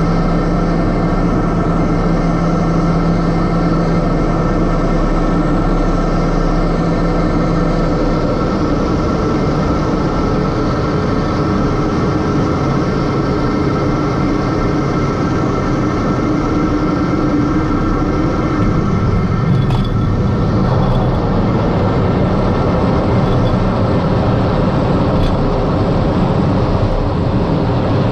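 Piper M600's Pratt & Whitney PT6A turboprop engine and propeller droning steadily, heard inside the cockpit through touchdown and the landing rollout. The drone's tones change twice, about eight and about nineteen seconds in.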